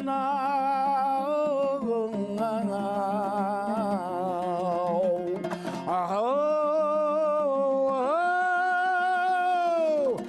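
A male singer performing a Kazakh zhyr (epic song) to a plucked string accompaniment, holding long wavering notes; the last two held notes in the second half each end in a falling glide.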